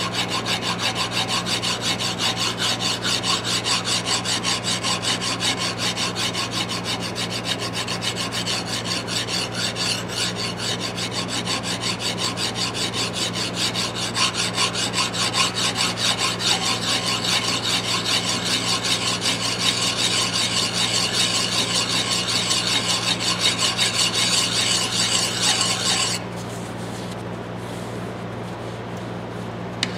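Hand file rasping back and forth over the steel head of a Bostitch 22 oz claw hammer in quick, steady strokes, taking out nicks. The filing stops about four seconds before the end, leaving a steady low hum.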